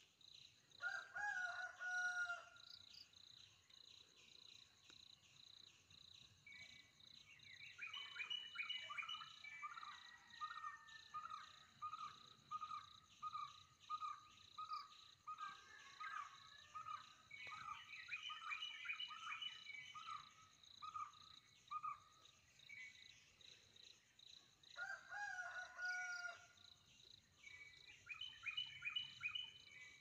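Wild birds calling over a steady, high insect drone. Two short calls come about a second in and again near the end, bursts of chattering come and go, and through the middle one bird repeats a clear note about twice a second for some ten seconds.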